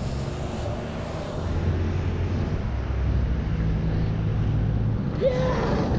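Street traffic noise: a steady low engine rumble from a vehicle, growing a little louder about a second and a half in. A short rising tone sounds about five seconds in.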